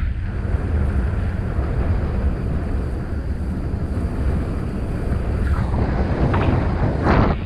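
Wind rushing over the camera microphone in flight under a paraglider, a steady heavy buffeting, with a brief louder rush near the end.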